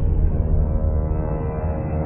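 Dark, droning horror ambience: a deep, steady rumble under several sustained tones, with no beat or sharp hits.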